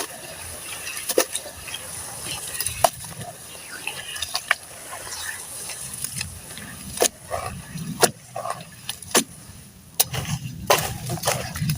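Soft sand-cement slabs crumbling in a tub: irregular sharp cracks and crunches over a gritty rustle, coming thicker in the second half.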